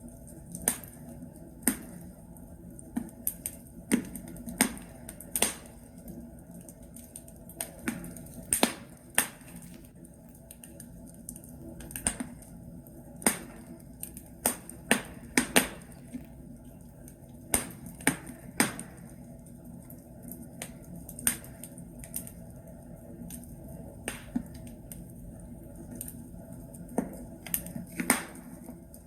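Wood logs burning in a fireplace, crackling and popping at irregular intervals over a soft steady hiss of the fire.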